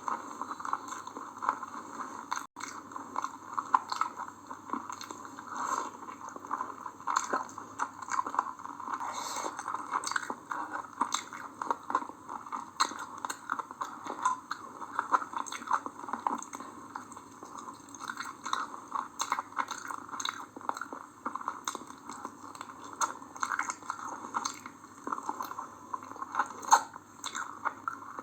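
A person chewing and biting through chicken biryani and chicken leg curry, a continuous irregular run of wet mouth clicks and squishes.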